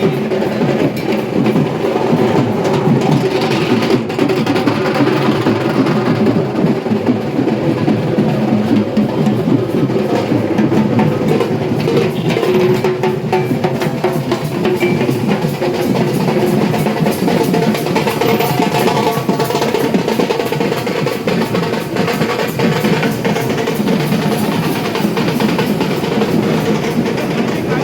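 Several dhaks, the large Bengali barrel drums, beaten fast with thin sticks by many drummers at once, making a loud, dense, unbroken drumming.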